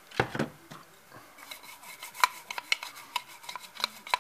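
Portafilter's plastic handle being scrubbed with a toothbrush in a plastic tub of cleaning solution. A short noisy burst at the start is followed from about halfway in by a quick run of small scrapes and clicks, a few a second.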